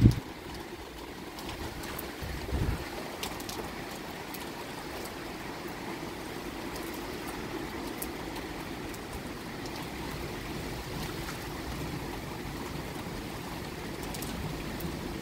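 Heavy rain falling steadily in a storm, a continuous hiss with scattered sharp drip ticks. There is one brief low thump about two and a half seconds in.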